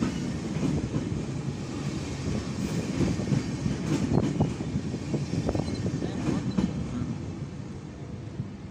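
RegioJet passenger coaches rolling past on the rails, wheels clattering with a few brief squeaks in the middle, the sound fading near the end as the last coach pulls away.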